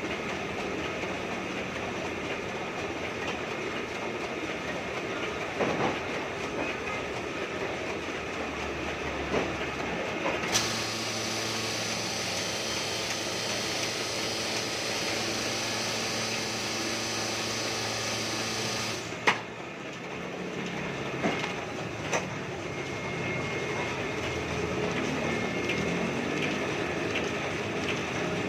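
Heidelberg GTO 52 sheet-fed offset printing press running steadily, with a few short sharp clicks and a change in the machine noise for a stretch in the middle.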